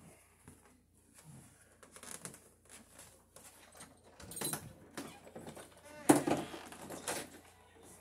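Scattered knocks and clatter of hand tools being handled while someone looks for a pair of needle-nose pliers, with a louder burst of sound about six seconds in.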